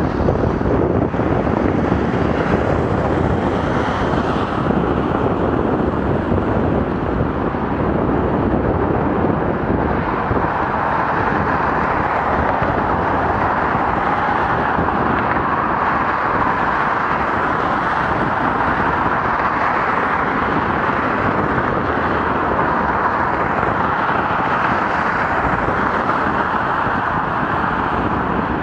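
Steady rush of wind over the microphone and road noise while riding a bicycle, with no clear single event. The noise turns brighter about ten seconds in.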